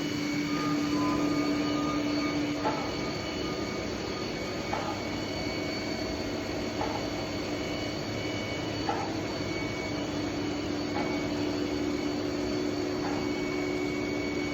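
Hurco BMC40/M CNC machining center running, a steady machine sound with constant whining tones and a short sound repeating about every two seconds.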